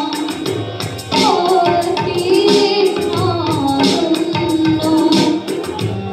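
A female voice singing a devotional song, with ornamented, wavering turns in the melody, accompanied by harmonium and tabla.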